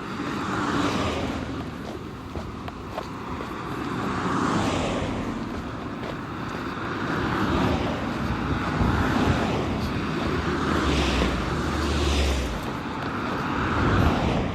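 Road traffic: cars passing one after another, each whoosh rising and fading over a second or two, with a low engine hum about two-thirds of the way through.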